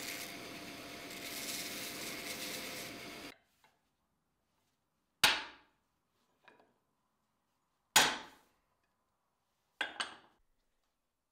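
Belt grinder running as a wooden axe handle is ground against the belt, cutting off about three seconds in. Then sharp hammer blows on the hafted axe head, each with a short ring: one, another about three seconds later, then two quick ones near the end.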